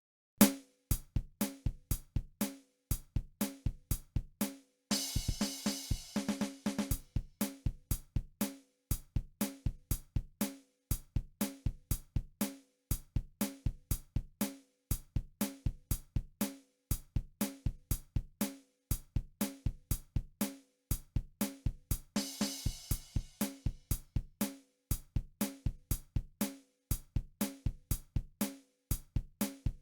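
A steady drum-kit beat of kick drum, snare and hi-hat, starting from silence just after the beginning, with a crash cymbal about five seconds in and again about twenty-two seconds in.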